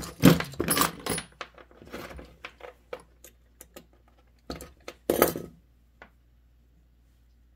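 Small metal tools and wire being handled on a workbench: a run of short clinks and rattles, most in the first second, with two louder clatters about five seconds in.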